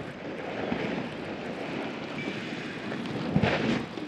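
Demolished 55-metre brick chimney collapsing: a continuous noisy crash of falling masonry, with a louder impact about three and a half seconds in.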